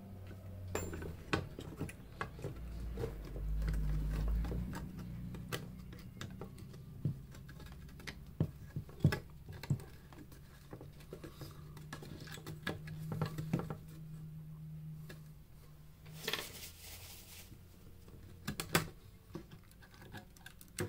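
Irregular clicks, taps and scrapes of hands and tools working on a studio monitor's parts during a teardown, over a low steady hum. About sixteen seconds in there is a short rushing noise.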